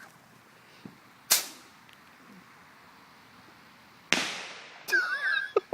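Two sharp bangs of small bottle rockets' firecracker reports, about three seconds apart. The second is the louder, with a fading echo.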